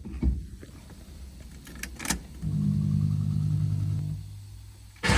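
A few light clicks, then a steady low electrical hum for about two seconds that stops, as the 1969 Camaro's ignition is tried.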